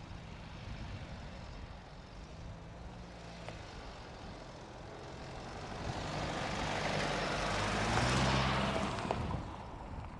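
Mercedes-Benz GLB 200 d SUV's four-cylinder diesel engine running at low revs as it crawls over dirt mounds, with tyres crunching on gravel. It grows louder as the SUV comes close and passes, loudest about eight seconds in, then fades.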